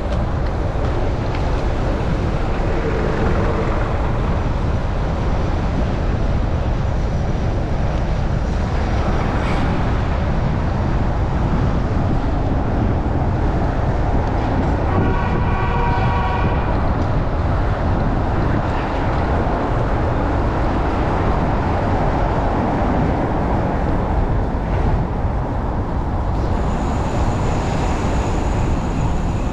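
Strong gusty wind rumbling on the microphone of a moving bicycle, with street traffic beneath it. About halfway through, a pitched tone sounds for about two seconds.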